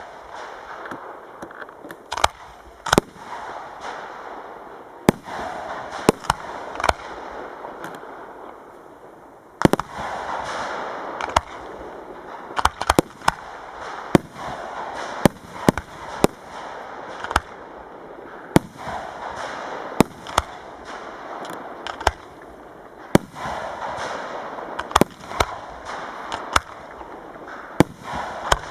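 Professional fireworks display: a continuous run of sharp bangs from shells bursting, about one or two a second, over a steady hiss that grows louder about ten seconds in.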